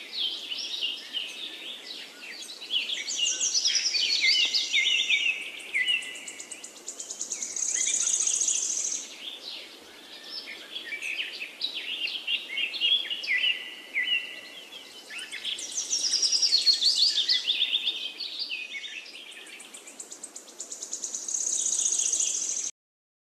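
Several birds chirping and calling in quick, overlapping phrases, with a high, fast buzzing trill that swells up three times. The sound cuts off abruptly near the end.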